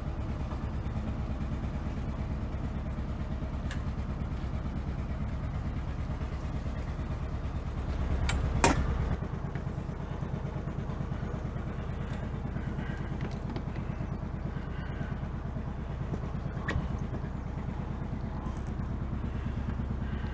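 A sailing yacht's inboard engine idling steadily with an even low beat while the boat lies alongside a harbour wall. A sharp knock comes about eight and a half seconds in, and a few fainter clicks are scattered through.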